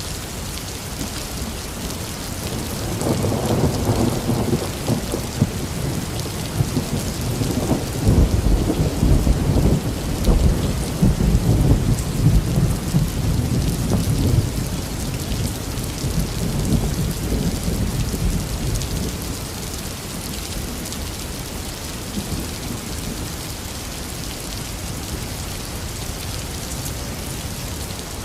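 Heavy, steady rain with a long roll of thunder. The thunder starts rumbling about three seconds in, swells to its loudest in the middle and dies away well before the end, leaving only the rain.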